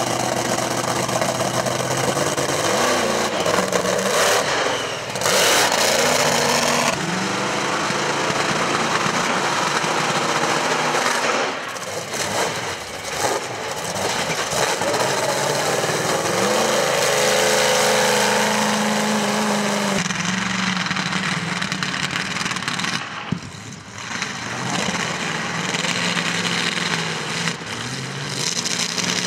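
Monster truck engine revving hard and easing off again and again, its pitch climbing and falling as the truck accelerates and drives over crushed cars.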